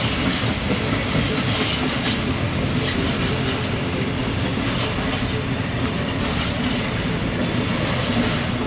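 A train running past on the track, its wheels clicking irregularly over the rails under a steady rumble.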